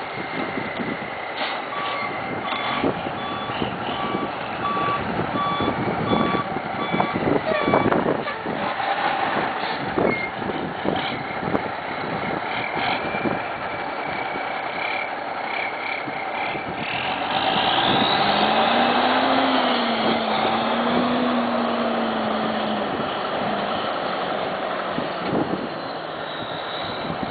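Tandem-axle dump truck's diesel engine running as it maneuvers, its reverse alarm beeping at an even pace for about six seconds starting a couple of seconds in. Later the engine revs up and runs louder for several seconds.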